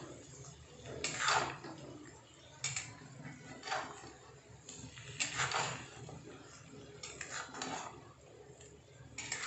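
Steel spatula stirring and scraping chicken curry in a metal kadhai, a scrape every second or so.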